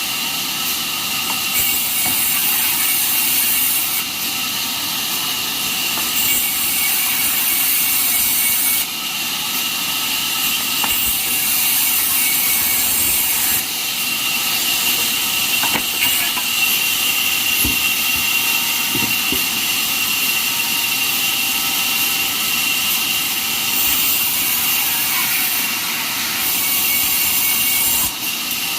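Band sawmill running and cutting jackfruit wood: a steady blade and motor noise with a thin high whine, changing abruptly in level several times.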